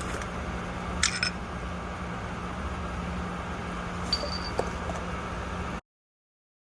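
Small metal parts clinking while he handles tools and a bolt: a cluster of clinks about a second in, then one ringing metallic clink near four seconds and a light tap, over a steady hum. The sound cuts off to dead silence near the end.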